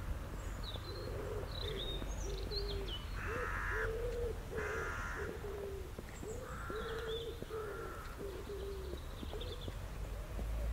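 Birds calling among trees: a pigeon cooing in a long run of short low notes, about two a second, with four harsh caws from a crow-family bird and high chirps from small songbirds.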